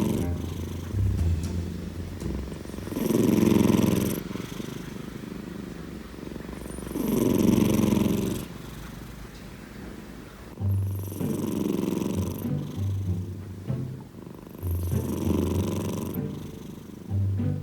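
A sleeping cat snoring with a rough, drill-like rattle, in slow breaths that swell about every four seconds, each with a low buzz.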